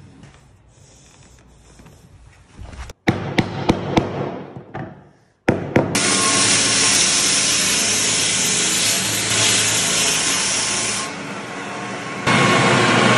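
A hammer taps a new oak parquet stave into its glued slot, a handful of sharp knocks about three to five seconds in. Then, from about six seconds, a floor sanding machine runs with a loud steady hiss, dipping briefly and coming back louder near the end.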